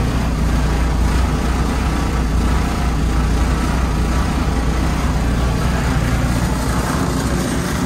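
Dodge Caliber SRT-4's turbocharged 2.4-litre four-cylinder idling steadily, heard from inside the cabin, on its first start with a newly fitted Precision 6266 turbo and no new tune yet.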